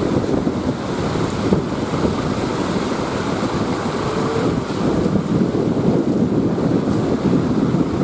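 Wind buffeting the microphone over the steady wash of heavy breaking surf.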